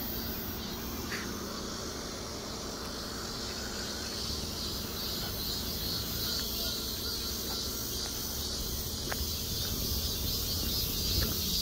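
Steady high-pitched chorus of insects in the surrounding trees and brush, over a low rumble.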